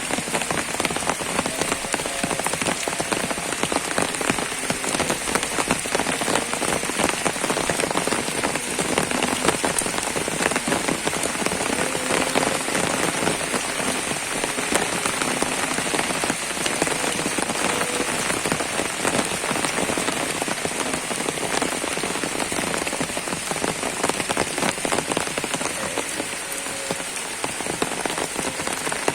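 Steady rain falling, a dense stream of individual drops hitting surfaces over an even hiss.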